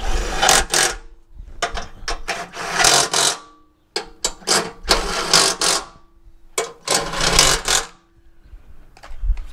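Impact wrench hammering in about four bursts of one to two seconds each, running down bolts on a lawn tractor mower deck.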